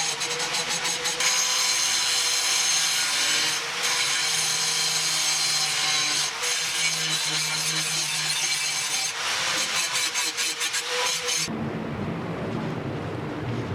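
A power tool running under load, a dense hiss over a steady hum, that cuts off abruptly about eleven seconds in.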